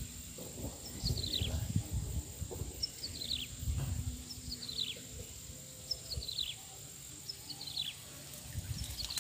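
A bird singing a short run of high notes that fall in pitch, the phrase repeated six times at roughly one-and-a-half-second intervals.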